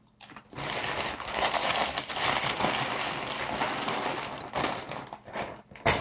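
Steady crinkling and crackling that starts just after the beginning and lasts about five seconds, ending in a few sharp clicks.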